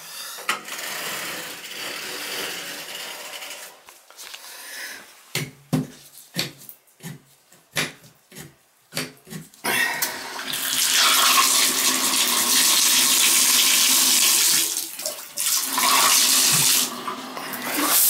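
Bathtub and shower water running: a moderate flow at first, then a run of short knocks and clicks from handling the fixtures, then water gushing hard into the tub from about ten seconds in, run at full flow to check the pressure.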